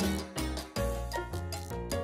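Background music with a steady beat, a moving bass line and pitched melody notes.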